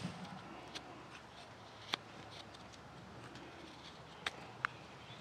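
Morakniv 106 sloyd knife slicing through alder, with about five short sharp clicks as the blade shears off chips, the loudest about two seconds in.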